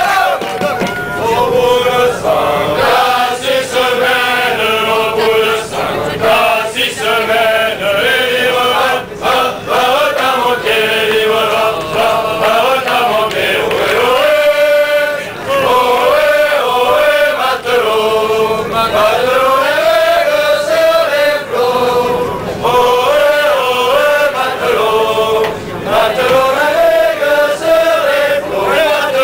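A large group of people singing a song together in unison, loud and chant-like, with short breaks between phrases.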